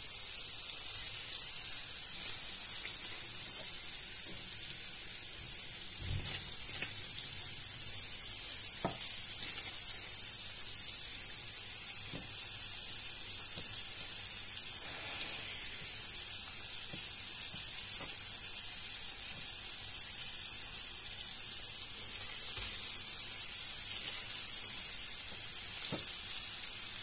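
Flour-dredged carp pieces frying in hot oil in two frying pans: a steady high sizzle, with a few light knocks now and then.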